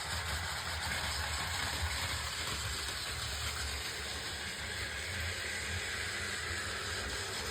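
A train running: a steady low rumble with a broad hiss.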